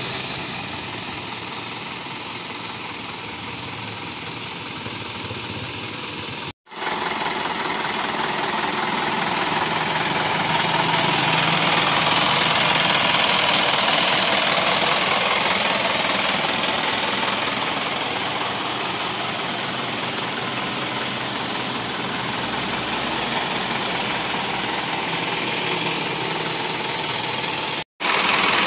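Isuzu Elf dump truck's four-cylinder turbo-diesel engine idling steadily. It is heard louder and closer after a brief cut about seven seconds in, and cuts out again for a moment near the end.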